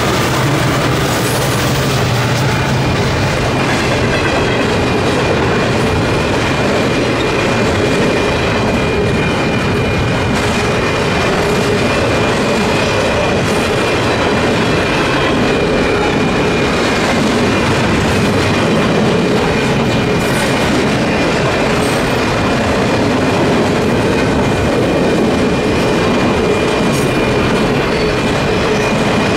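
Union Pacific double-stack intermodal freight train rolling through a road crossing: a steady rumble and clickety-clack of wheels on rail, with a locomotive's engine drone fading out in the first couple of seconds. A steady high ringing from the crossing's electronic bell runs underneath.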